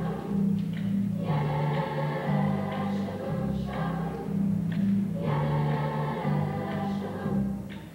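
Youth choir singing a song in phrases with short breaks between them, the sound dropping away near the end as a phrase closes.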